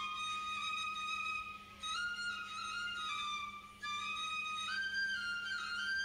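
Background music: a slow melody of long held notes on a wind instrument, stepping up and down in pitch.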